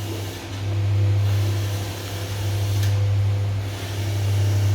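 A steady low mechanical hum, swelling and fading about every two seconds.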